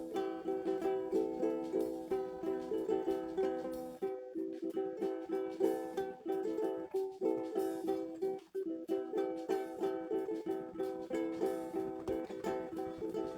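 Guitar strummed steadily in a repeating chord pattern, with a quick strum every fraction of a second. It breaks off briefly about four seconds in and again a little past eight seconds.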